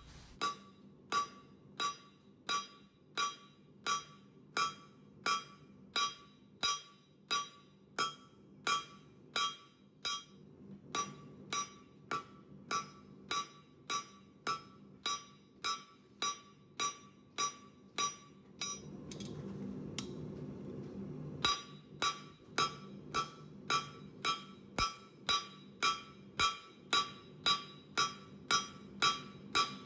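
Hand hammer striking hot rebar on an anvil, flattening the socket end into a fishtail shape: evenly paced ringing blows, about three every two seconds. The hammering breaks off for about three seconds about two-thirds through, leaving a low steady rushing noise, then resumes at the same pace.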